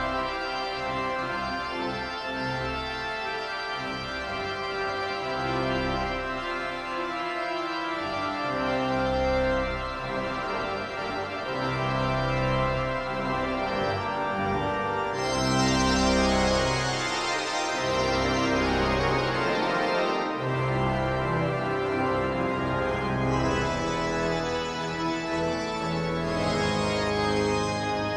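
Church pipe organ playing sustained chords over a moving bass line. About halfway through, brighter high stops join and the sound grows fuller.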